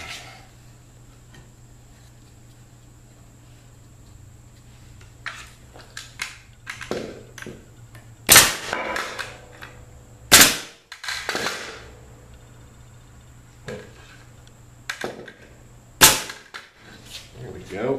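Pneumatic framing nailer firing nails into a 2x4 wooden frame: three sharp bangs, the first two about two seconds apart and the third some six seconds later, with lighter clicks and knocks in between.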